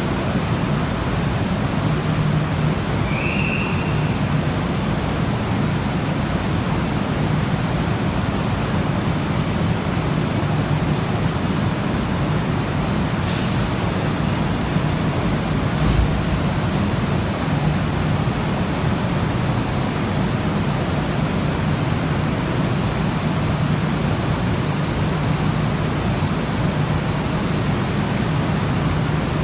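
Steady hum of a railway station platform with an electric train standing at it, a short hiss of air about halfway through and a dull thump just after.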